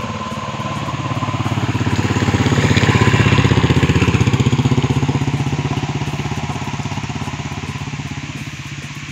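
Motorcycle engine running with a rapid, even firing pulse, growing louder to a peak about three to four seconds in and then fading away.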